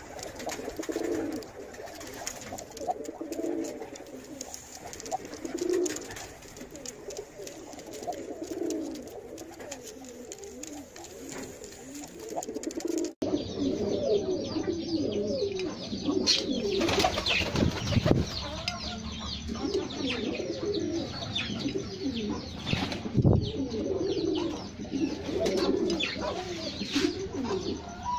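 Domestic pigeons cooing over and over in low rolling coos. About 13 s in, the sound cuts to a busier, louder stretch of several pigeons cooing together, with a couple of brief loud noises.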